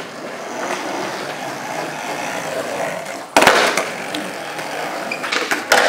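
Skateboard wheels rolling steadily on a smooth indoor floor, then a loud, sharp pop-and-landing clack about three and a half seconds in as a fakey backside bigspin is tried. Another short clatter of the board comes near the end.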